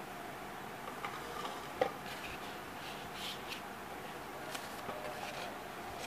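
Light clicks, taps and rustling as the white plastic shade and base of an IKEA LAMPAN lamp and a paper insert inside the shade are handled, over a steady background hiss.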